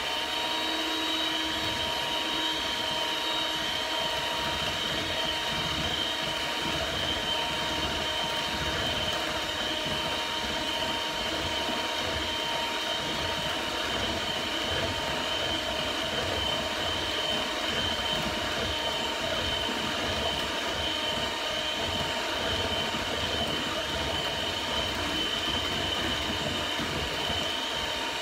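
Electric hand mixer running at a steady speed, a constant motor whine, its beaters whisking a thin ice-cream base of egg yolks, sweetener, coconut milk and heavy cream in a metal bowl.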